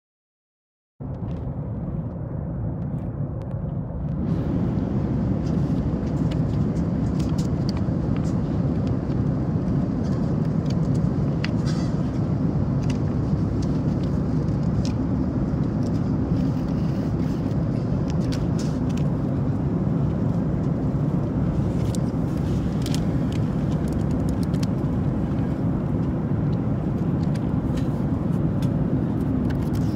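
Steady cabin noise of a Boeing 737-8 MAX in flight, a low even rumble of engines and airflow that cuts in about a second in and grows a little louder a few seconds later. Light clicks and paper rustles from the in-flight magazine being handled sit on top of it.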